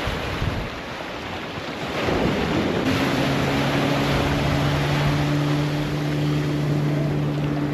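Wind buffeting the microphone over rushing water on a moving boat, with the boat's motor coming in about three seconds in as a steady low drone.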